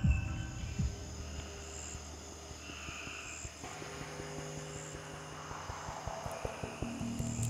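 Low steady hum with insects chirping at night, following two deep heartbeat-like thumps in the first second.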